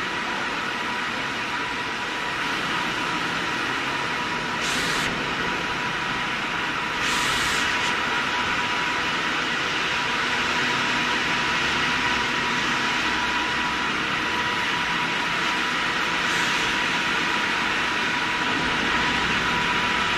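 Stone-cutting machinery running steadily: an even rushing noise with a constant high whine, and short hissing bursts about 5, 7 and 16 seconds in. It gets slightly louder about 7 seconds in.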